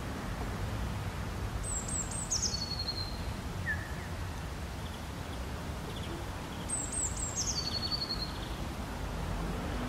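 Outdoor ambience: a steady low background rumble, over which a small bird sings twice, each a short phrase of high notes stepping down in pitch, about two seconds and seven seconds in.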